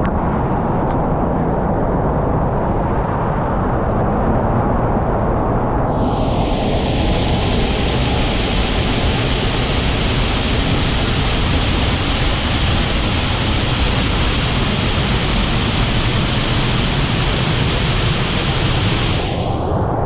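Loud, steady rush of the Sgwd yr Eira waterfall heard close up from behind its curtain of falling water. The rush turns brighter and hissier from about six seconds in until just before the end.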